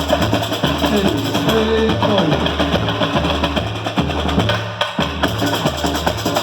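Samba school bateria playing a samba rhythm: deep surdo bass drums beating a steady pulse under dense, rattling higher percussion.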